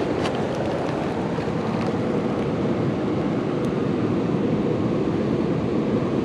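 Steady roar of Pacific Ocean surf washing in around the rocks, with no breaks or single crashes standing out.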